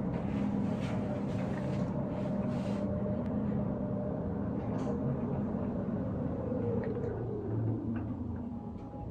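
Hotel delivery robot driving along a carpeted corridor: a steady motor hum, with a whine that falls in pitch about seven seconds in as the robot slows on reaching the door.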